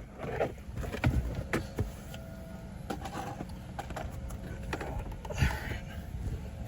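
Scattered light knocks and clicks, about half a dozen over a few seconds, from handling parts inside a car's passenger footwell, over a steady low rumble.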